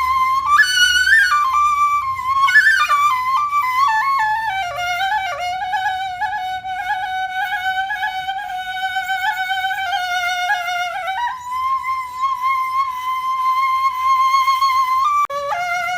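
Background music: a single high melody line, with quick ornamented runs over the first few seconds and then long held notes, dropping suddenly to a lower note near the end.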